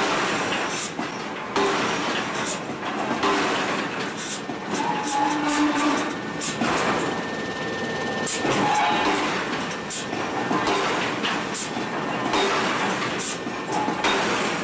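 Forging hammer striking a red-hot steel disc in a ring die: heavy blows at irregular intervals of a second or two over steady workshop noise.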